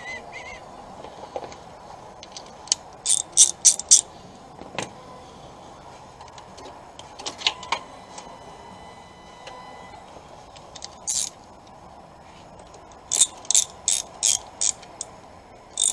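Ratchet wrench clicking in several short runs, tightening a battery terminal clamp.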